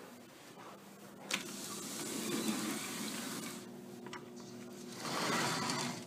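A latch clicks about a second in, then a sliding glass balcony door rolls open with a long rushing scrape. A second shorter rush comes near the end.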